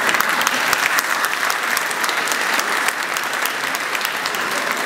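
Audience applauding, a steady dense patter of many clapping hands.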